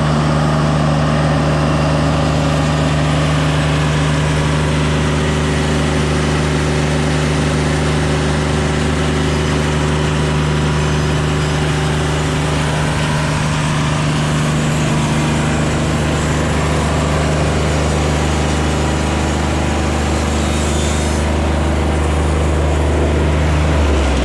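An engine running steadily at one constant speed, its pitch falling just at the end as it slows.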